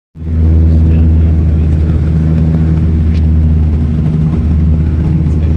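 Steady propeller drone of a Dash 8 Q400 turboprop heard inside the cabin: a loud, even low hum with a stack of steady tones above it.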